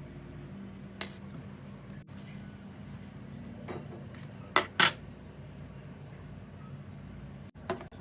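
A few sharp clicks and taps of small tools and phone parts on a hard work surface, the loudest a quick pair about halfway through, over a low steady hum.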